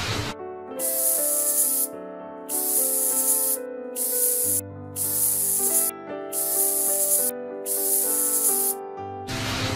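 Spray bottle spraying in six separate hissing spritzes, each about a second long, over background music. A short whoosh comes at the start and another near the end.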